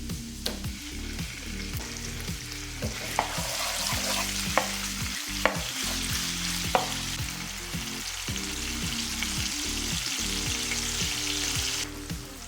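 Food sizzling in hot oil in a frying pan as it is stirred, with a few sharp taps of a utensil against the pan. The sizzle cuts off suddenly near the end.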